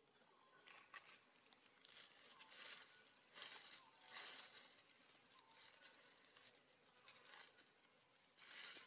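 Faint rustling and soft scrapes in dry leaf litter, in a few short spells, over a steady faint high hiss; otherwise near silence.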